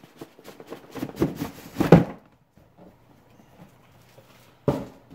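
Cardboard lid of a model kit box being slid off the box: a rustling scrape of cardboard on cardboard about a second in, loudest near two seconds, then a single knock near the end.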